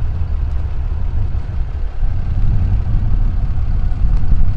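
Diesel engine of a big off-road wrecker tow truck idling with a steady low rumble, growing a little louder about two seconds in.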